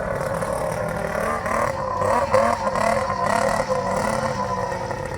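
Vintage snowmobile engine running, its pitch rising and falling in quick revs from about one and a half seconds in.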